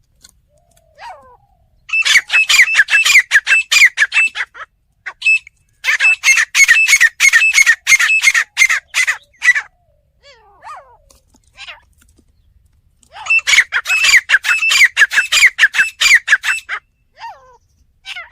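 Teetar (francolin) calling: three long runs of rapidly repeated notes, with scattered single short calls in the pauses between them.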